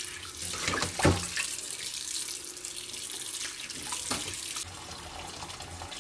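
Kitchen tap running into a stainless steel sink while raw chicken pieces and a plate are rinsed under the stream, with several knocks of the plate and bowl against the sink, the loudest about a second in. The splashing hiss softens a little near the end as the stream falls into the bowl of chicken.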